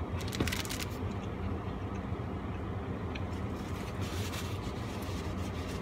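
A person biting into a burger in its paper wrapper, the paper crinkling with a few sharp crackles in the first second, then chewing, with another short rustle about four seconds in. Under it runs a steady low hum.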